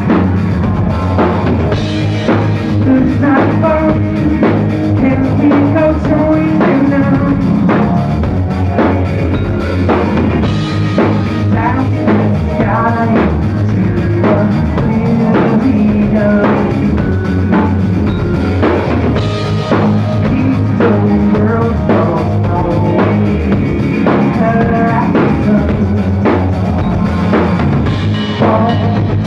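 Live rock band playing loudly: a drum kit pounding out a steady beat of bass drum and snare hits under electric guitars.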